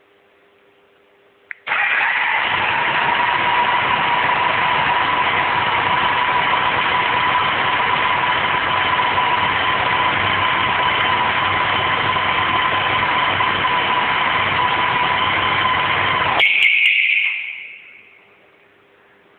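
A click, then a BMW K100's four-cylinder engine, started by remote, catches at once and runs steadily for about fifteen seconds. It then cuts off with a click and a short fading whine.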